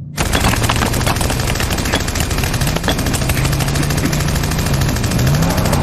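Long sustained burst of rapid automatic machine-gun fire from a tank-mounted gun, starting suddenly and running unbroken, over a low hum.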